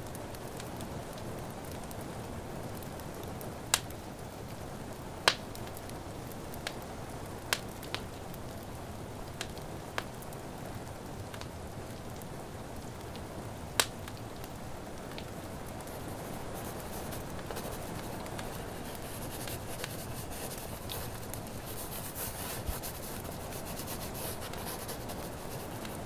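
Fireplace crackling over a steady hiss of rain, with scattered sharp pops from the burning wood, several of them loud and sudden in the first half. A soft, high scratching rustle builds in the second half.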